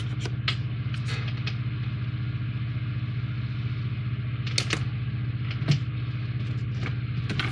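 Steady low hum under light scrapes and taps of hands handling a cardboard model-kit box, with a cluster in the first second and a few sharper knocks in the second half.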